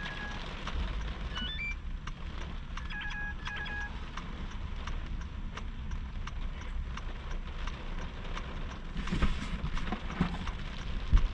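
Rain tapping on a parked car, with a low steady rumble in the cabin. A few short electronic beeps sound near the start and about three seconds in, and from about nine seconds in cardboard boxes are shifted and knocked about in the cargo area.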